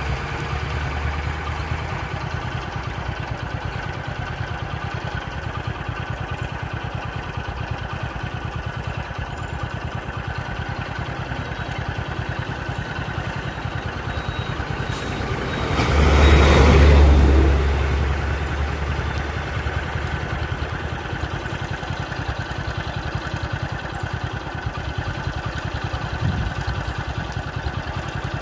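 A vehicle engine idling steadily, with a louder rush of a passing vehicle swelling and fading about 16 to 18 seconds in.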